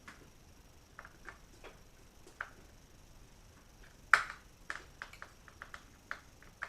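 Light clicks and taps of small hard parts and tools being handled inside an opened laptop, one sharper click about four seconds in, then a quick run of light clicks near the end.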